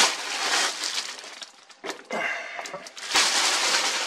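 Packaging crinkling and rustling as it is handled and pulled off, pausing briefly about halfway through before starting again.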